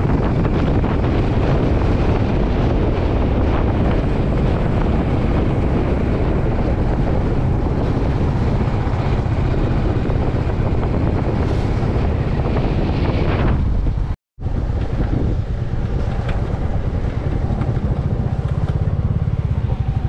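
Steady rush of road and wind noise from a moving vehicle, with wind buffeting the microphone. It cuts out for a moment about two-thirds of the way through, then goes on.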